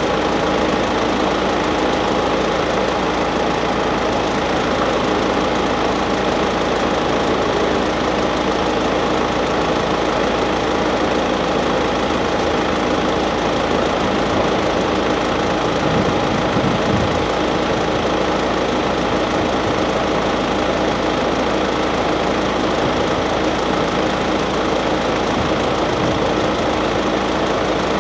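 Car engine idling steadily close by, an even hum with no change in speed.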